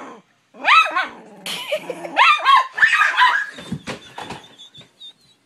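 Dog barking and yipping in a rapid string of sharp, high calls at a person teasing it, fading out near the end.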